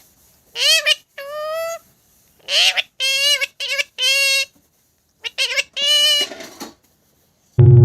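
About ten short, high-pitched, parrot-like squawking calls, most rising or bending in pitch, come in three quick groups with dead silence between them. A loud, low buzz cuts in briefly near the end.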